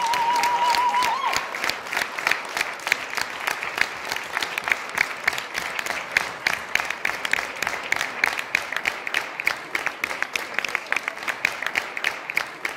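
Audience applause: many people clapping, with a brief wavering high tone over it in the first second or so. The clapping thins toward the end, the claps growing more separate.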